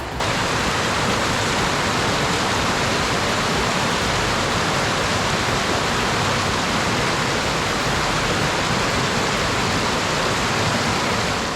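Steady, loud rush of flowing water, a stream or cascade, starting abruptly.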